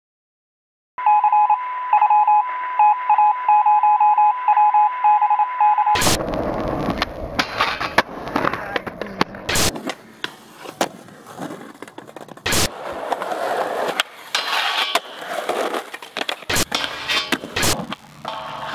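Telephone tones: a steady line tone with quick pulsing beeps, heard through a narrow phone-like sound for about five seconds. Then skateboard sounds take over: wheels rolling on concrete, with several sharp cracks of boards popping and landing.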